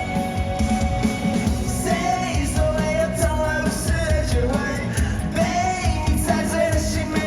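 Live rock band music, loud and steady, with a melodic line over bass and drums.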